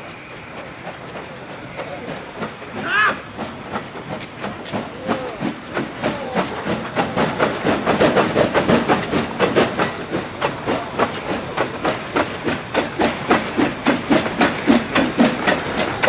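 C2 narrow-gauge steam locomotive hissing steam, with a fast even beat of about five strokes a second that builds from about six seconds in and grows louder. A short high squeal sounds about three seconds in.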